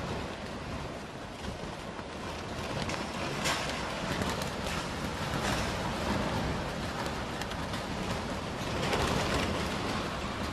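Storm wind noise, a steady rush with scattered knocks and clatters of debris, swelling near the end.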